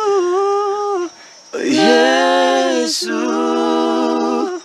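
Unaccompanied gospel singing in Swahili by a woman and two men, drawing out the word 'Yesu' in long held notes. After a short break a little over a second in, the three voices come back together in harmony on a sustained chord.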